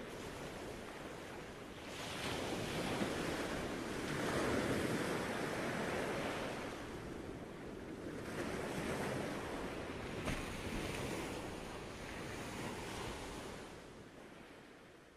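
Sea surf: waves washing in and drawing back, swelling and ebbing every few seconds, then fading away near the end.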